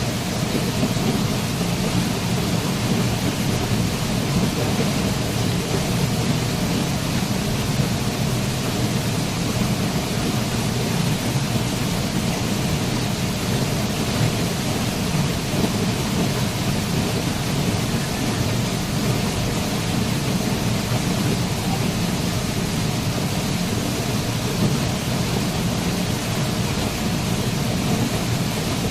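Waterfall: water falling and crashing, a steady, dense rush with a deep low rumble, unbroken throughout.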